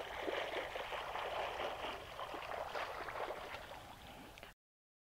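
Water splashing and churning from a swimmer's flutter kick while she glides on her back, slowly fading and then cutting off abruptly near the end.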